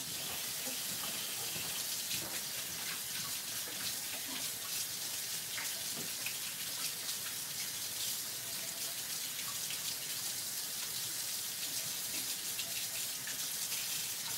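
A steady, even hiss with a few faint clicks and knocks.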